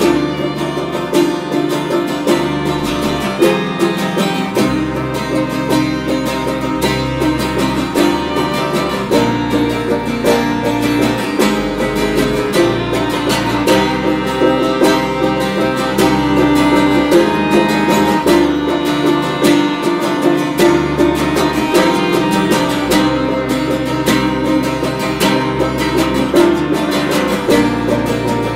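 Instrumental acoustic folk music: strings picked in a quick, steady run over low held bass notes that change every few seconds.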